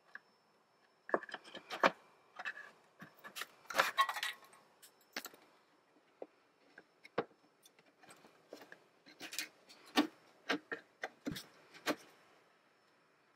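Plastic retaining clips in a wheel-well fender liner being worked loose with a clip removal tool: irregular sharp clicks, scrapes and small rattles in clusters, a bunch about a second in, another around four seconds in, and a run of clicks in the last few seconds.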